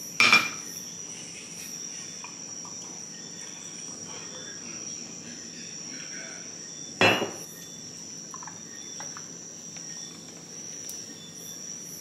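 A steady, high chorus of night insects. Glassware knocks sharply on a table twice, loudest about a third of a second in and again about seven seconds in, as drinks are being poured.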